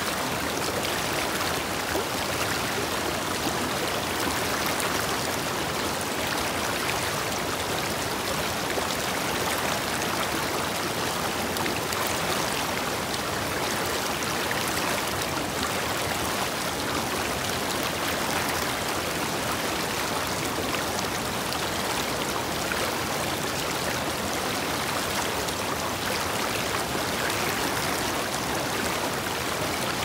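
Shallow river rushing over rocks close by, with a small, wide stepped waterfall pouring behind it: a steady, unbroken rush of water.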